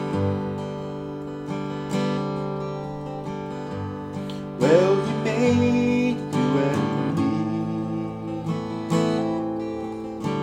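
1990s Taylor 910 steel-string acoustic guitar playing the introduction to a song, chords ringing, getting louder about halfway through.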